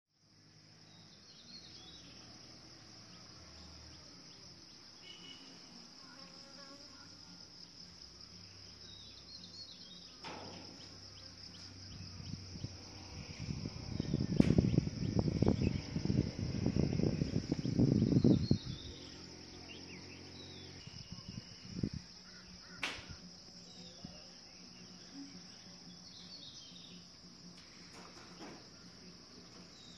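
Insects chirring in a steady, high-pitched drone. Around the middle comes a loud burst of low, irregular rumbling lasting about five seconds.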